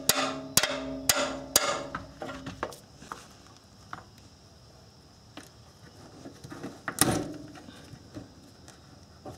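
A 3-pound hammer striking an open-end wrench on a rusted-in exhaust oxygen sensor: a run of sharp, ringing metal-on-metal strikes about half a second apart, tapping the seized sensor loose, fading out after about two and a half seconds. A few light clicks follow, and a single louder knock about seven seconds in.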